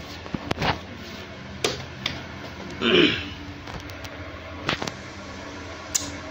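Steady low hum of a running ceiling fan, with scattered light clicks and knocks. A short vocal sound comes about three seconds in.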